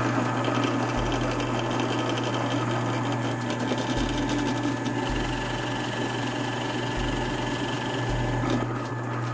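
Drill press running steadily with a steady motor hum while a Forstner bit bores into a block of wood.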